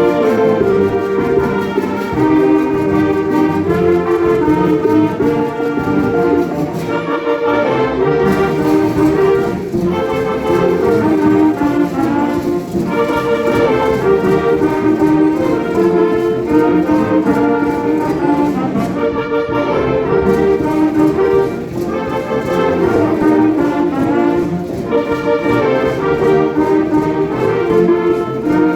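Concert wind band playing, with the brass prominent in held chords.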